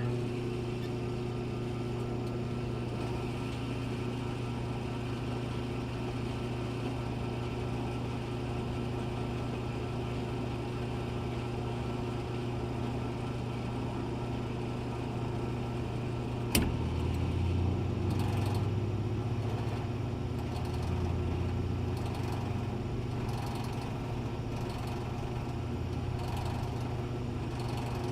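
Gas pump dispensing fuel: a steady mechanical hum with several steady tones. A sharp click comes a little past halfway, after which a lower tone wavers under the hum.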